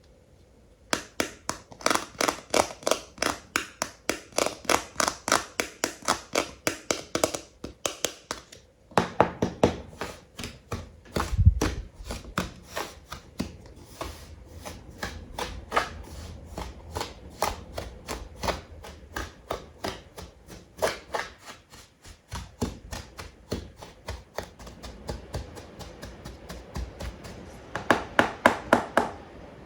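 Animal toy figures being tapped by hand, a steady run of sharp taps at about three to four a second, with a short break about eight seconds in and one louder, deeper knock a few seconds later.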